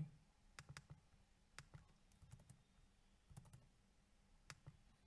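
Faint, scattered clicks at a computer, about ten of them, with a quick run of three about three and a half seconds in, over near silence.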